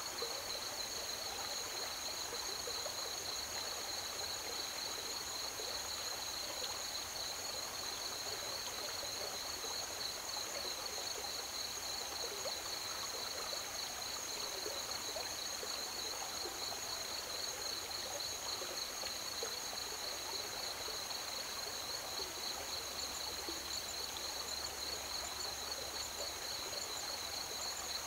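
Crickets trilling in a steady, unbroken chorus at two high pitches, over the even rush and trickle of flowing river water.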